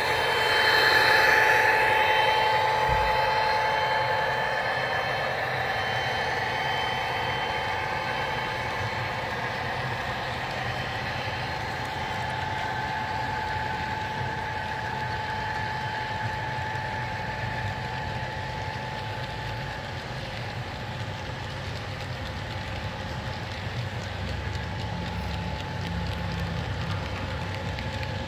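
Model freight train rolling steadily past on its track, with the diesel engine sound of its sound-equipped model locomotives fading over the first few seconds as they pull away.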